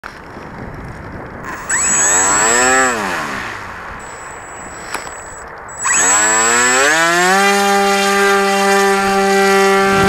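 FPV quadcopter's brushless motors spinning up with a rising whine and winding back down about two seconds in. About six seconds in they spin up again and settle into a steady, many-toned whine as the drone lifts off.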